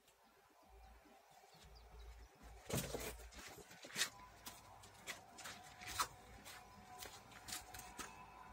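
Bi-folding gate with a BFG 40 folding mechanism opening under electric telescopic actuators: a series of sharp clunks and clicks from the folding leaves and hinges, with a faint steady motor whine joining about halfway through.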